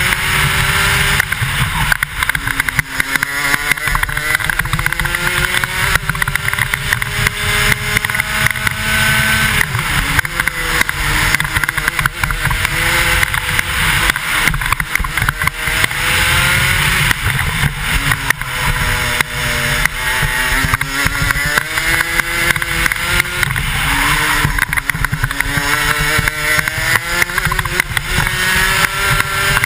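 125cc two-stroke racing kart engine at full throttle. Its pitch climbs steadily down each straight and falls sharply when the driver lifts for a corner, about four times in all. Wind rushing over the helmet-mounted camera runs underneath.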